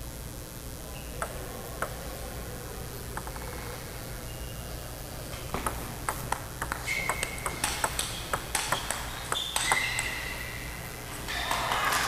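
Table tennis: a few ball clicks, then a fast rally of about four seconds of ping-pong ball clicks off bats and table, with short shoe squeaks on the court floor. The point ends on a forehand smash and applause rises near the end.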